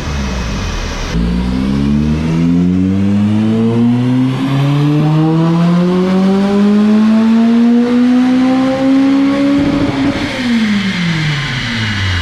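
Honda Civic FD2 engine, with a newly fitted aftermarket exhaust, on a rolling-road dyno doing a full-throttle power run: about a second in the revs start climbing smoothly and steadily for around nine seconds up to the top of the rev range, then the throttle is closed and the revs drop quickly.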